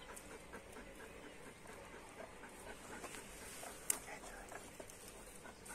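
Dogs panting faintly, a quick, even rhythm of breaths, with a single sharp click about four seconds in.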